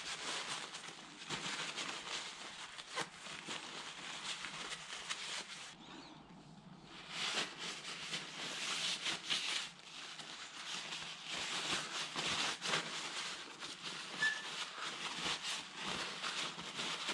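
Aerosol brake cleaner hissing in bursts as it is sprayed on the fuel injectors to clean them, with a short break about six seconds in.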